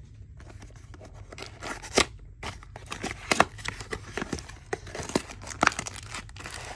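A trading-card hobby box being unpacked by hand: cardboard and wrapper rustling broken by several sharp clicks and snaps, the loudest about two seconds and three and a half seconds in.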